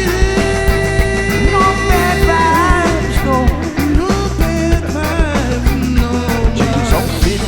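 Live rock band playing an instrumental passage: a lead line of held and bending notes over a steady drum beat and bass.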